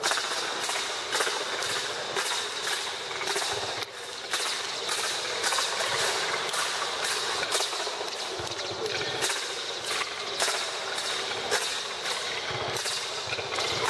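Rhythmic percussion: a steady run of sharp strikes, a few a second, over a faint constant high tone, with a brief drop about four seconds in.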